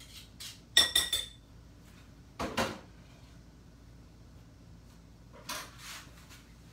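Kitchen utensil and mixing bowl clinking and knocking: a loud ringing clink about a second in, a duller knock a moment later, and two fainter knocks near the end.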